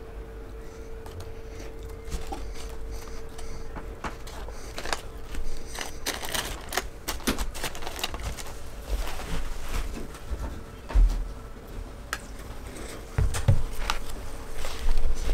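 Close-up mouth sounds of chewing a hamburger: wet clicks and smacks, with crinkling of the burger's paper wrapper. A steady faint hum runs underneath, and there are a few low thumps in the second half.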